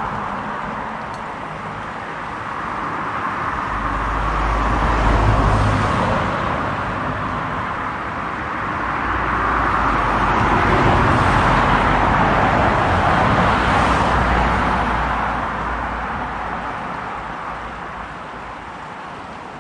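Road traffic passing: cars swell up and die away, one about five seconds in and a longer, louder pass in the middle, with the hiss fading toward the end.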